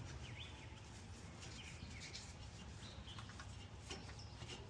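Faint bird chirps, short and scattered, with a faint click near the end.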